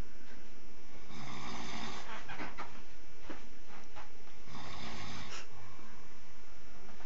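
A sleeping man snoring heavily, with two long snores, one about a second in and the next about three and a half seconds later.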